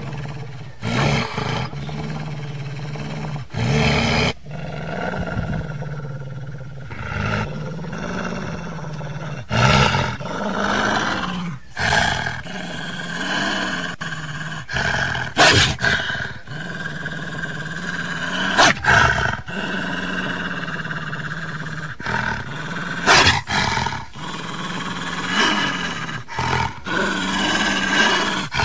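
Dubbed-in horror sound effects: a low, steady, monstrous growling drone, broken every few seconds by sudden loud hits.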